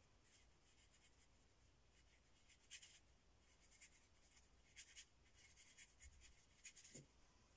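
Faint, scratchy strokes of a painting tool dragged across a textured acrylic painting surface. There are a few short strokes near the middle and a cluster near the end.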